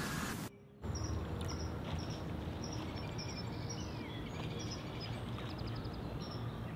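Outdoor ambience: a low steady rumble with faint, short, high bird chirps every second or so. The sound drops out briefly about half a second in.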